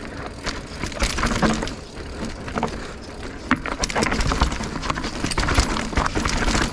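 Mountain bike riding down a rocky trail: the tyres roll over rock amid a run of sharp clicks, knocks and rattles from the bike, over a steady low rumble.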